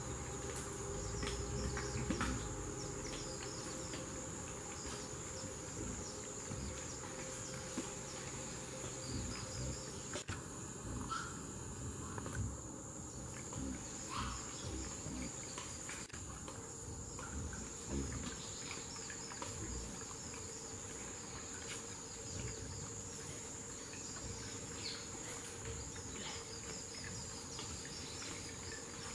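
A steady high insect buzz from the forest, over white-lipped peccaries rooting in dry leaf litter close by: rustling and scattered soft knocks.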